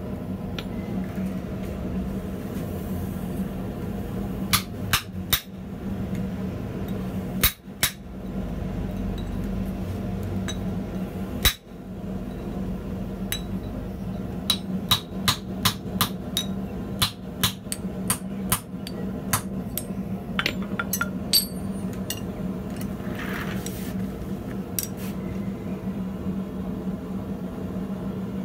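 Hand hammer blows on steel as a drift is driven into a red-hot ring of heavy pipe on a steel block: about two dozen sharp metallic strikes, a few scattered at first, then a quicker run of blows in the second half. A steady low hum runs underneath.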